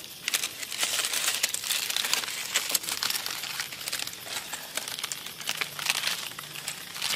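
Charred, brittle banana leaves crackling and tearing as hands peel open a fire-roasted leaf-wrapped parcel, a dense run of small crinkles and snaps.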